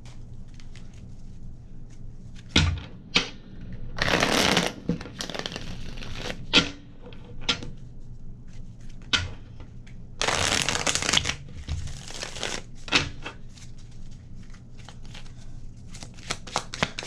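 A deck of reading cards being shuffled by hand: two longer riffling shuffles, about four and ten seconds in, with short snaps and taps of cards being handled and laid down between them.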